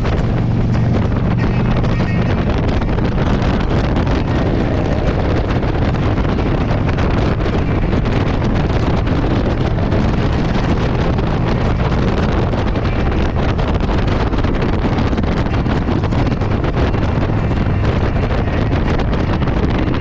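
Wind buffeting the microphone over a motorcycle engine running steadily at highway speed.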